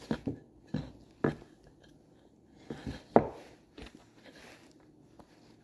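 About half a dozen sharp knocks and clatter from cut wooden pieces being handled and set down on a workbench, spaced unevenly and bunched in the first half, then quiet handling.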